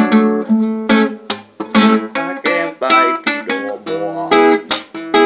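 Nylon-string classical guitar strumming chords, with sharp, short strokes about twice a second.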